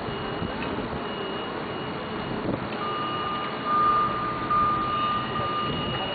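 Steady street background noise with faint voices. A steady high-pitched tone sounds for about three seconds, starting about halfway through.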